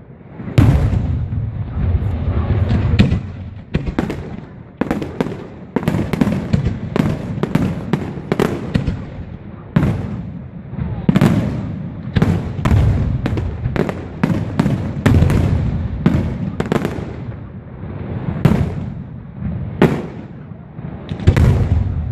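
Fireworks display: aerial shells bursting in a rapid, uneven string of sharp bangs, bunched into volleys at times, with a low rumble carrying on between them.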